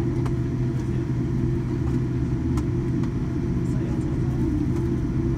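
Cabin noise of a Boeing 787-9 airliner taxiing: a steady low rumble of the engines and rolling gear, with a few faint clicks.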